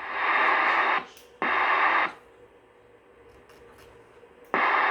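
CB radio receiver static hissing from its speaker, cutting in and out sharply as the squelch is opened and closed. It comes as three bursts of hiss, the second about a second and a half in and the third near the end, with a low hiss between them.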